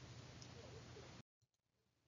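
Near silence: faint room hiss with a low hum that cuts out to dead silence a little over a second in.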